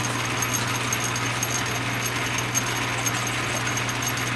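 Atlas metal lathe running under power: a steady motor hum with light, irregular ticking from the gear train.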